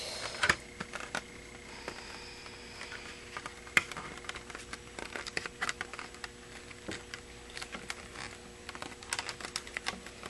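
Irregular light clicks and crackles of a clear polycarbonate RC car body being handled and flexed while liquid masking is peeled off it.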